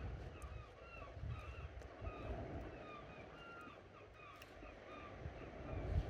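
Birds calling faintly: many short chirps scattered all through, over a low rumble.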